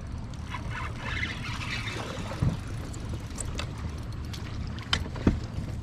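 Steady low rumble of wind and water around a fishing kayak on choppy water, with a few short knocks, the loudest near the end.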